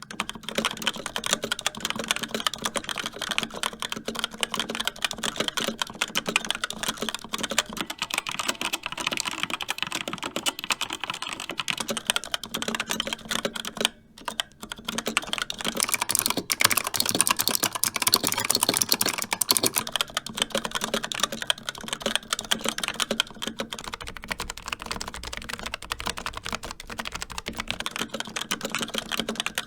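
Steady fast typing on a series of mechanical keyboards: first a Razer Pro Type with Razer Orange tactile switches, then a Rapture X-Ray with Outemu Red linear switches, then a Razer Huntsman Mini with clicky Razer Purple switches, which sound sharper and brighter, and near the end a Logitech MX Mechanical Mini with Kailh Brown switches. The typing breaks off for a moment a little past the middle.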